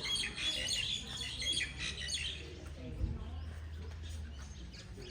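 Small birds chirping and twittering in quick high notes, busiest in the first half. About three seconds in comes a dull thump, followed by a low rumble lasting about a second.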